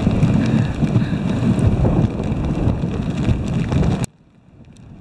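Dog sled moving over snow: steady rumbling noise of the runners and wind on the microphone, which cuts off suddenly about four seconds in.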